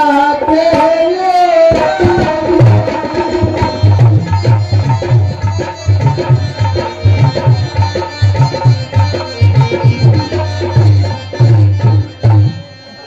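Devotional stage music: a sung line ends about two seconds in, then an Indian hand drum plays a fast rhythm with deep bass strokes, stopping shortly before the end.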